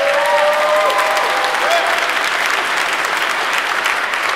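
Wedding congregation applauding steadily, with a few voices whooping and cheering in the first second or two.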